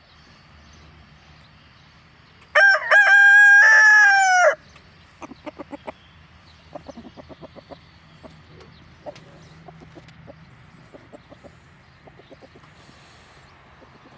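A rooster crows once, a loud call of about two seconds that starts a couple of seconds in, followed by scattered short, soft clucks from chickens.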